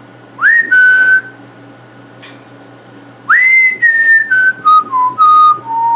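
African grey parrot whistling: a rising note into a short held tone, then after a pause a longer phrase that swoops up and steps down through several descending notes.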